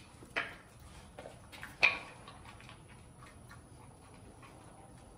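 A young dog's claws ticking on a concrete patio as it trots about, with a few sharp clicks, the loudest about two seconds in.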